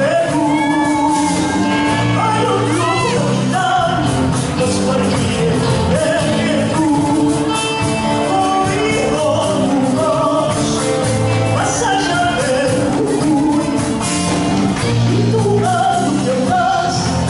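A song playing, with a singing voice over a band and a steady bass line.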